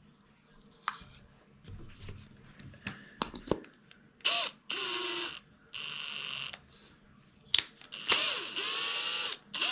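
Cordless drill driving a deck screw into a cedar board in three short bursts of about a second each, the last a little longer. Before them, a few light clicks and knocks of the wood being handled.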